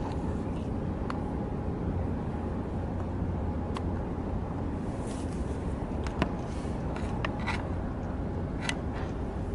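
Steady low rumble of harbourside background noise, with a few sharp clicks scattered through it, the loudest about six seconds in.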